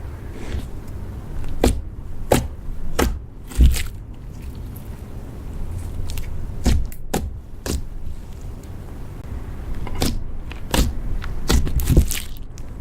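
Slime being kneaded and pressed by hand with makeup mixed in, making irregular sharp clicks and crackles of uneven loudness.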